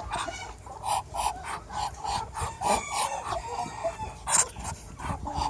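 A flock of chickens and roosters clucking and calling, many short calls overlapping, with one longer call about three seconds in.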